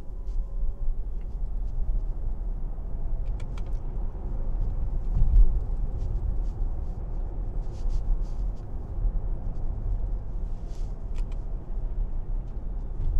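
Road and tyre noise heard inside the cabin of a Fisker Ocean electric SUV driving at about 40 mph: a steady low rumble with a few faint clicks, swelling briefly about five seconds in.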